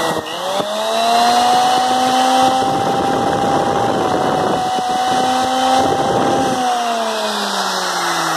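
Towa electric groove cutter's motor (1100 W, 8500 rpm) running free with its whine rising as it spins up, holding steady, then falling as it winds down after the switch is released near the end.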